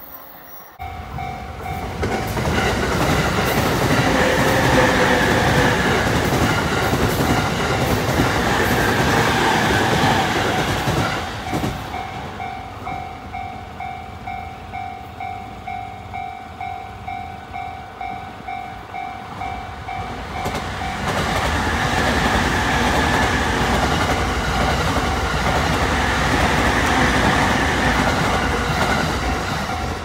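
Level crossing warning bell ringing in even strokes, a little under two a second. Two electric trains rumble past over it, their wheels clattering on the rails, one in the first ten seconds and another in the last ten.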